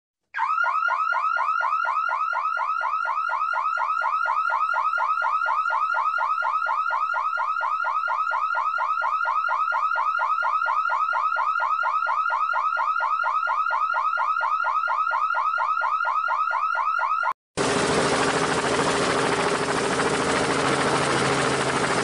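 Battery toy bus's electronic siren: a rapid, unbroken run of rising chirps that cuts off suddenly about 17 seconds in. A toy helicopter's spinning rotor mechanism then whirs and rattles.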